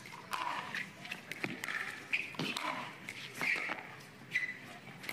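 Pickleball rally: paddles popping the hard plastic ball back and forth about once a second, with sneakers squeaking and scuffing on the hard court between shots.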